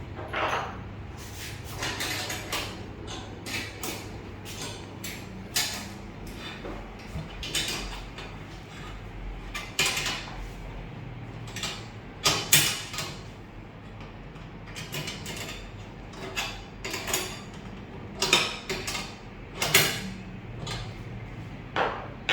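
An open-end wrench clinking and scraping against the nuts and bolts of a steel cable tray splice joint as the nuts are tightened, with irregular metal clicks and knocks. Several louder clanks come in the second half.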